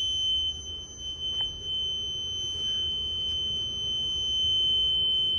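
Fire alarm control panel's trouble buzzer sounding one steady high-pitched tone: the panel is signalling a trouble condition after its smoke detector power fuse was pulled.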